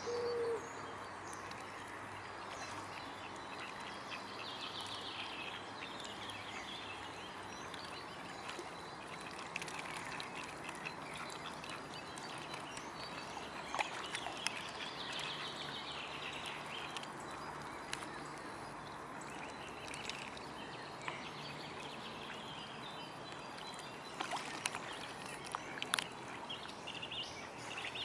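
Outdoor lakeside ambience with faint, scattered high bird chirps and a short low hooting call right at the start. A few splashes and clicks come around halfway and again near the end, as mute swans dip their heads and upend to feed.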